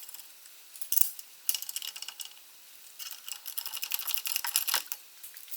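Hand ratchet clicking in short runs, with metal tools clinking, as the brake caliper is bolted back onto the steering knuckle. The clicking is densest in a fast run from about three to five seconds in.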